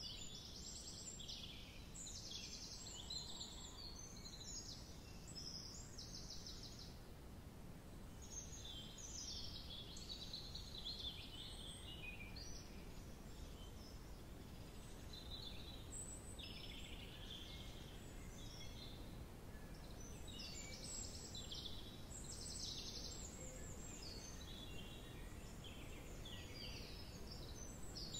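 Small songbirds singing in woodland: repeated phrases of high, rapid trills and warbles come and go, with short pauses between them. A low, steady background hum lies under the song.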